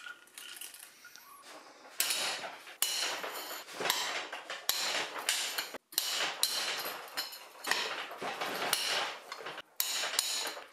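A socket wrench lengthened with a cheater pipe ratchets in repeated strokes of rapid clicking as the cylinder head bolts of a Suzuki Hayabusa 1300 engine are loosened. The clicking starts about two seconds in.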